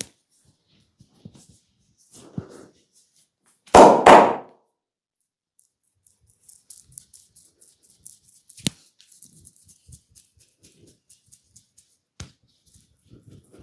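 Hands at work during a head and shoulder massage: a loud double slap about four seconds in, then two sharp single cracks later on, with faint rubbing and ticking between them.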